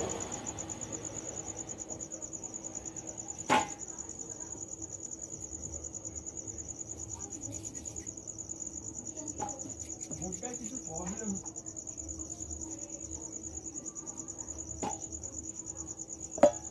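Hands pinching small pieces of fuchka dough over a steel plate, with a few sharp taps on the plate, the loudest near the end, over a steady high insect trill and a low hum.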